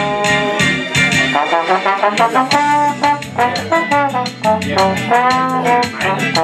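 Trombone playing a solo melody in quick runs of notes, with a slide bend arching up and down about five seconds in, over a latin-jazz backing track with drums and guitar played from a small amplifier.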